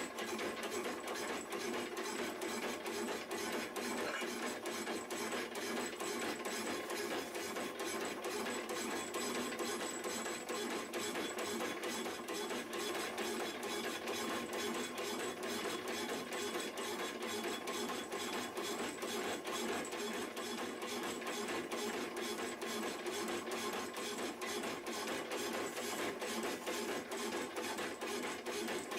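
Power hacksaw machine running through a cut, its blade stroking back and forth in a steady, even rhythm of rasping strokes.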